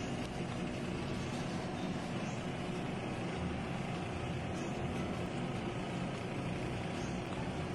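Steady, even drone in a kitchen, with a few faint light clicks of a spatula on a frying pan.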